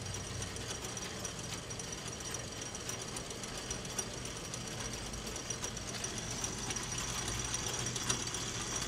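Old mechanical fuel pump dispensing: a steady motor hum and whine with fast, fine clicking from its rolling-number counter as it turns.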